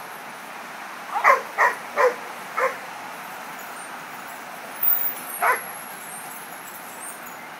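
A dog barking: a quick run of about five short barks, then a few more about five seconds in, over steady background noise.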